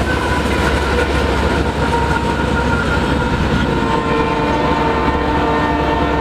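Freight train running by with a steady low rumble and wheel noise, while a locomotive horn, a Nathan K3LA chime on the lead BNSF GE ES44AC, holds a chord that grows stronger about halfway through.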